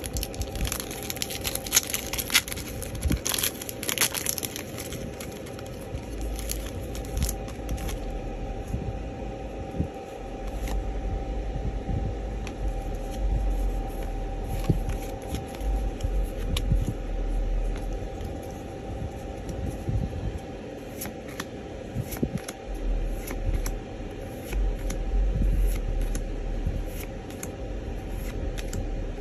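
Foil wrapper of a Pokémon TCG Vivid Voltage booster pack crinkling and tearing open for about the first four seconds. Then the trading cards are handled and flicked through, with scattered light clicks and low handling noise over a faint steady hum.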